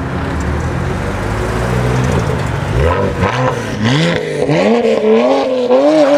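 A car engine rumbling low, then from about three seconds in accelerating hard, its pitch climbing and dropping back repeatedly as it shifts up through the gears.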